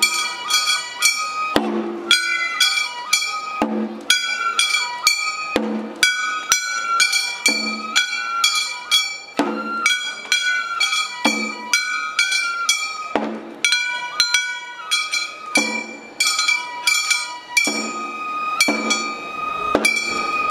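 Furyu hayashi festival music: Japanese transverse flutes play a held, stepping melody over taiko drum strokes. A heavier stroke falls about every two seconds, with lighter beats between.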